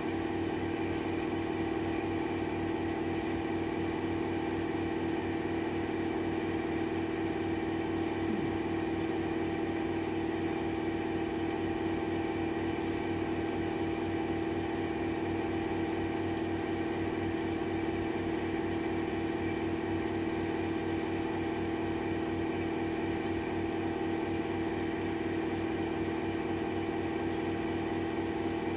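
Steady mechanical hum with several steady tones that does not change, and a few faint light clicks.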